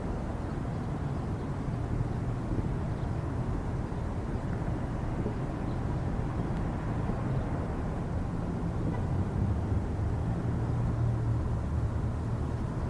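Steady low outdoor rumble with no siren sounding: by now the 3T22's signal is not heard.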